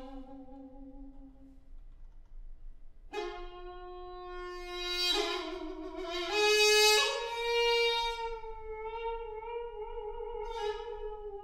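Piri, the Korean double-reed bamboo pipe, playing slow held notes with a rich, reedy tone. A low note dies away, and after a short pause a new note enters and steps upward, swelling loudest about two-thirds of the way through. It then sinks slowly in pitch.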